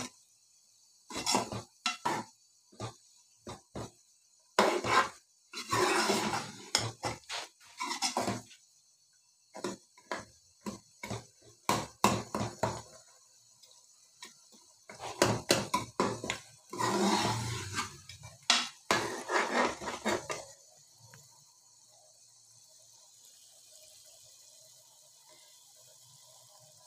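Metal spoon scraping and knocking against the side and bottom of a metal pot in irregular strokes, as mashed turnips and meat are stirred and fried to cook off their water. The stirring stops about twenty seconds in.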